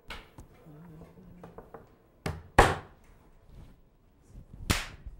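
Three sharp smacks: two close together a little over two seconds in, the second the loudest, then another near the end, with a few fainter knocks between.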